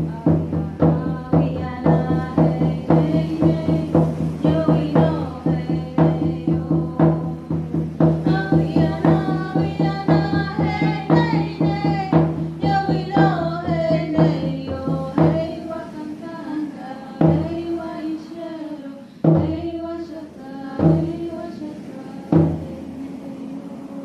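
Native-style medicine frame drums with rawhide heads beaten in a fast, steady pulse while women sing a melody over them. About halfway through the rapid beat stops and gives way to single strikes every second and a half or so, with the singing carrying on.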